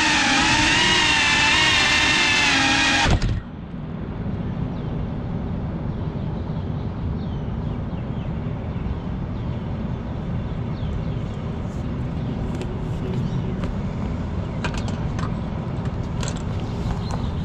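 FPV quadcopter's motors whining, the pitch wavering up and down, then cutting off suddenly with a knock about three seconds in as the drone comes down. After that there is a steady low rumble of city traffic, with a few sharp clicks near the end as the drone is handled.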